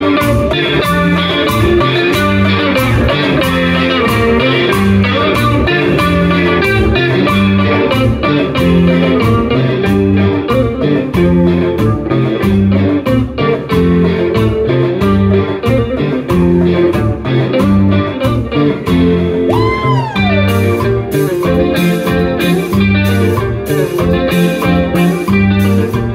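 Live band playing instrumental music: an electric guitar carries the melody over a repeating bass line, a drum kit and timbales keeping an even beat. About twenty seconds in, a note swoops up and back down.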